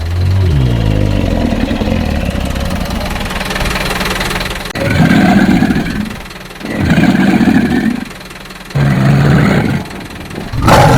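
Deep animal roars and growls, the kind played for a dinosaur, tiger or lion: a long roar falling in pitch at the start, a rumbling growl, then three shorter roars each about a second long.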